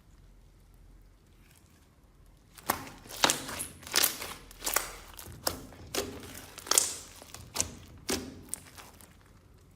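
Hands squeezing and poking clear slime, making a run of sharp, sticky pops and clicks that starts about two and a half seconds in and lasts about six seconds.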